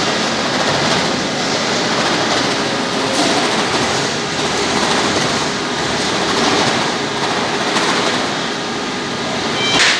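Steady, dense din of machinery on a cardboard box factory floor, with a brief louder swell near the end.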